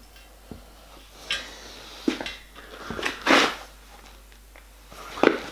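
A hand tap in a tap wrench being turned to cut a thread in a copper boiler plate, run dry without lubricant: scattered clicks and short metal scrapes, the loudest a little past halfway.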